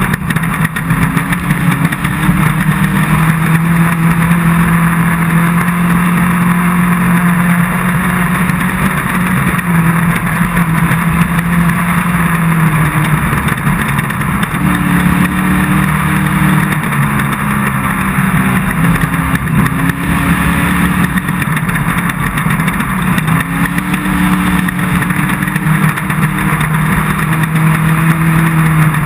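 Off-road race car's engine running hard through the whole stretch, its pitch stepping down and back up several times with throttle and gear changes, over a constant rushing noise.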